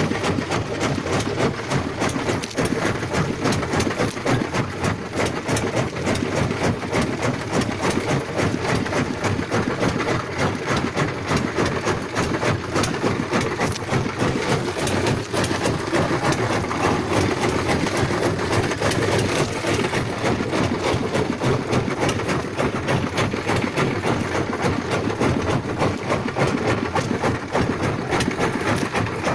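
Boat engine running steadily while the boat is under way.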